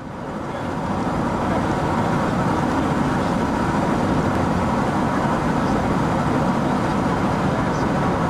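Steady road and engine noise inside a moving passenger van's cabin, a dense rumble and hiss that fades in over the first second or so.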